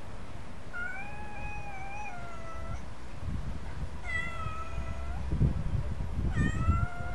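Domestic cat meowing three times, each a drawn-out meow lasting a second or two, the third starting near the end.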